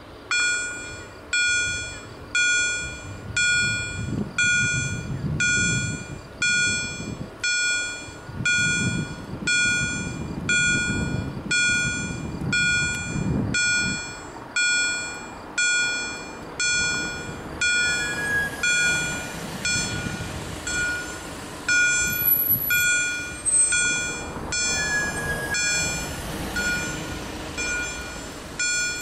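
Level crossing warning bell of an automatic crossing signal ringing, a bright ding that fades fast, struck about once a second and about twice a second from roughly 18 seconds in. It warns that a train is coming. A car's low rumble passes under it in the first half.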